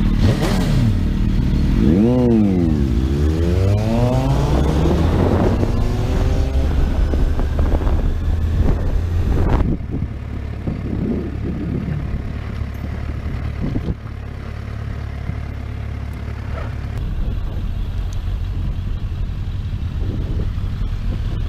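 Motorcycle engines revving and pulling away, their pitch rising and falling several times. About ten seconds in the level drops suddenly to a steadier engine note as a motorcycle rides along at low speed.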